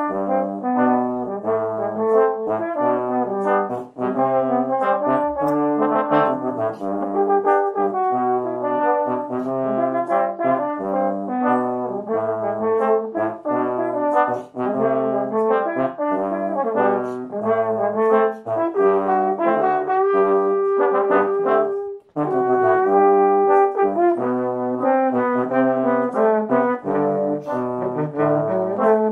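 Trombone quartet, three tenor trombones and a bass trombone, playing an arrangement in four-part harmony. Near three-quarters of the way through the parts hold a chord and break off briefly before coming back in.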